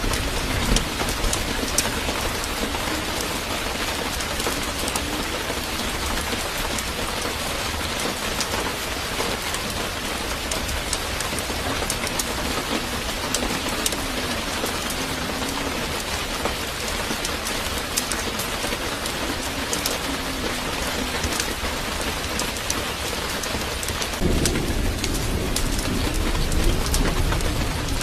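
Steady rain-like hiss with many small crackling ticks. A low rumble comes in a few seconds before the end.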